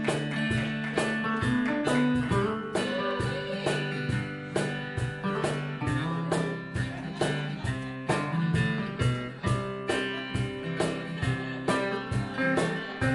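Instrumental guitar break with no singing: an archtop guitar and an acoustic guitar play together, chords picked and strummed in an even beat.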